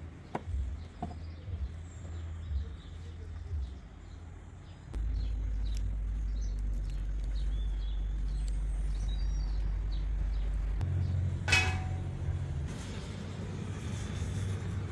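Small birds chirping, with a few sharp knife taps on a wooden cutting board in the first seconds as green onions are chopped. After about five seconds a steady low rumble sets in. About eleven and a half seconds in, one short, loud, pitched call sounds.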